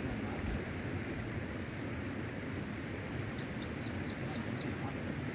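Outdoor ambience: a steady low noise bed with a thin high-pitched drone throughout. A bird calls a quick run of about six short falling notes a little past halfway.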